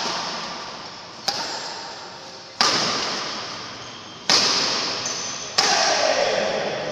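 Badminton rackets striking the shuttlecock in a doubles rally: four sharp hits about one and a half seconds apart, each ringing on in the echo of a large hall.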